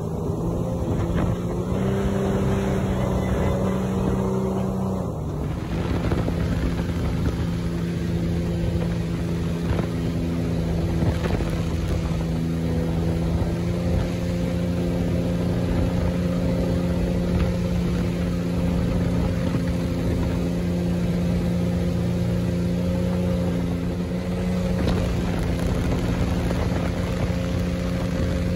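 Jetboat engine running steadily at speed, with rushing water and wind noise, its pitch dropping slightly about five seconds in.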